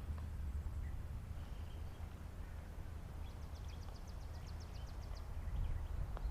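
Wind rumbling on the microphone, with a songbird singing a rapid high trill of about seven notes a second for roughly two seconds in the middle, and a few faint chirps.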